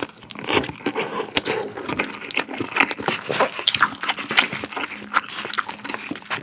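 Close-miked eating of spicy cup ramen: noodles slurped in just after the start, then wet chewing with many small lip smacks and mouth clicks.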